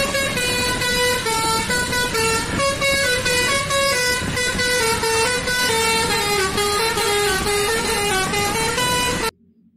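An Indonesian tour bus's musical 'telolet' air horn playing a quick tune of stepped notes over steady background noise, cutting off abruptly near the end.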